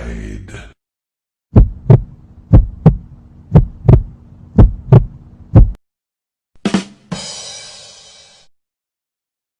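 Heartbeat sound effect: double thumps about once a second, five beats in all, over a steady low hum. Near the end comes a short sharp hit with a ringing tail that fades out.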